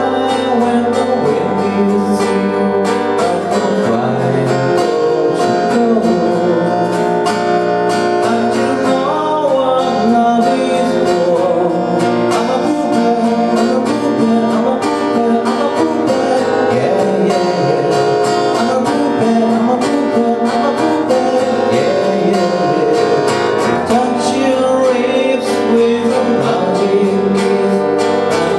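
A song with strummed acoustic guitar playing steadily throughout.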